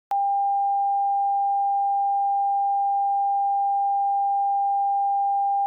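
Emergency Alert System-style attention tone: one pure, steady electronic beep held at a single mid pitch. It starts abruptly just after the start and does not waver.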